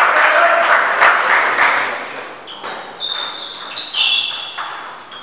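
Audience applause dying away over the first two seconds, then a plastic table tennis ball bouncing several times with short, high pings.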